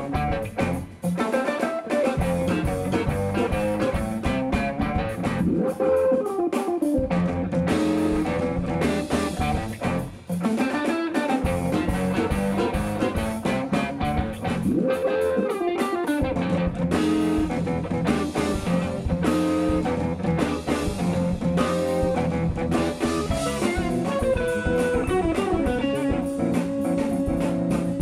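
Live instrumental jazz-funk band playing: electric guitar out front, with bent notes, over bass guitar, drum kit and electric keyboards.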